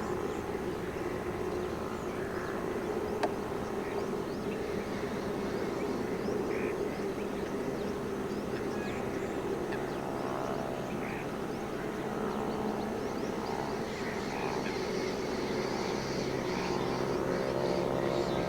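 A steady low mechanical hum, like a distant engine, runs throughout. Faint short bird calls are scattered over it, and there is a single click about three seconds in.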